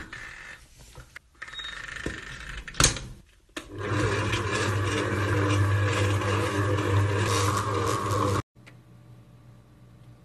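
Stand mixer running with its dough hook kneading dough: a steady motor hum that cuts off suddenly about eight and a half seconds in. Before it there is some uneven rubbing and a sharp knock about three seconds in.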